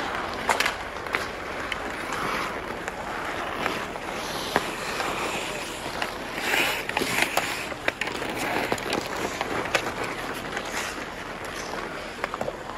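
Ice hockey skates scraping and carving across outdoor rink ice, with sharp clacks of sticks striking the puck and the ice scattered throughout.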